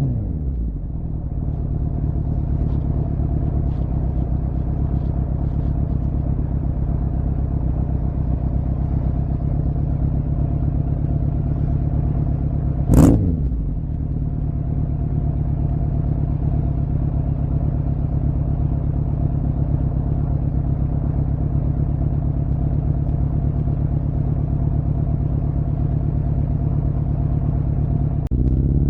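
2006 Suzuki GSF 650 Bandit's inline-four idling steadily through a cut-down Beowulf exhaust with no baffle, with one quick throttle blip about halfway through. The revs start to climb again near the end.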